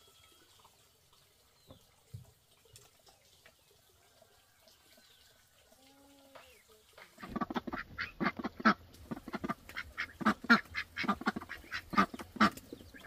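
Poultry calling in a loud, rapid run of repeated squawks, starting about seven seconds in after a quiet stretch with a few faint calls.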